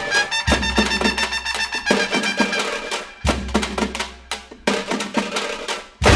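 Music with a percussion beat: quick repeated drum strikes over sustained instrumental tones, with deep bass hits about half a second in and again around three seconds.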